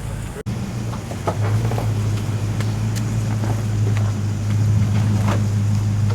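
A 4WD's engine running at low revs as it crawls through a flooded rocky creek crossing, with a steady low hum that grows louder about a second in. Scattered short knocks and splashes come from the tyres on rocks and water.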